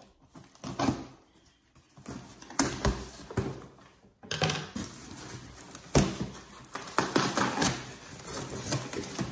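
Cardboard shipping box being opened and dug through by hand: irregular clicks, taps and rustles of cardboard and packing peanuts, sparse at first and busier after a couple of seconds.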